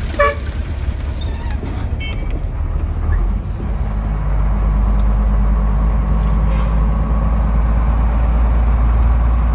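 Oil tanker truck's diesel engine running on the move, heard from inside the cab. About three seconds in, its note drops and it grows louder as it pulls harder.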